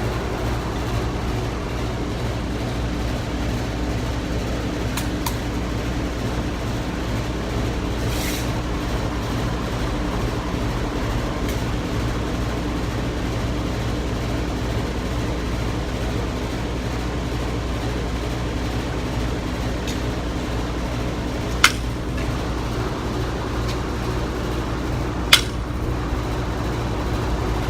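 Steady low background hum, with two sharp cracks from a pellet gun near the end, about four seconds apart.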